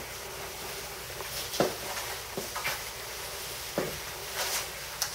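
Quiet room tone with a few faint, short clicks.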